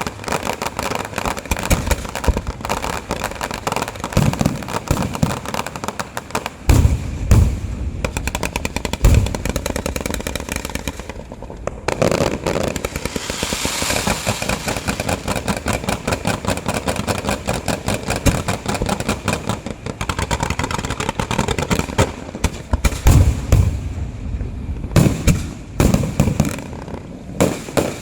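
Fireworks and firecrackers going off: continuous rapid crackling, with heavy booms several times.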